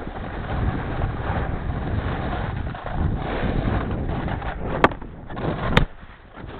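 Wind buffeting the microphone of a goggle-mounted camera, over the scrape of a snowboard sliding on snow. Near the end come two sharp clicks about a second apart.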